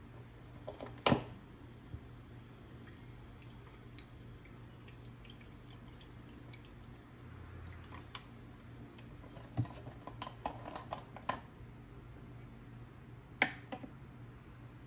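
Milk poured from a carton over ice cubes in a tall glass, with kitchen handling noises: a sharp clink about a second in, scattered light clicks and knocks later on, and a sharp knock near the end as the carton and cup are handled on the counter.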